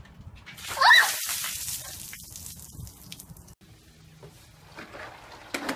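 A bucket of ice water tipped over a person's head, splashing and then dripping away over a couple of seconds, with a short rising squeal as the water hits about a second in.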